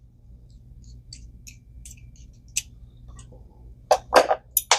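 Small metal parts of an Ambassadeur baitcasting reel clicking and scraping as its level-line pawl is taken off: faint scattered ticks, then a few louder sharp clicks near the end.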